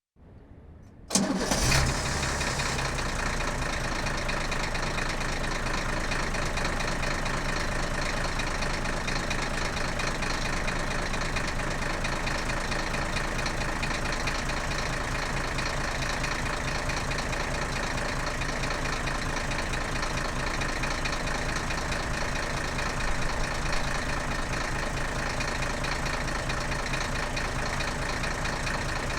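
Diesel vehicle engine starting about a second in, flaring up briefly, then settling into a steady idle.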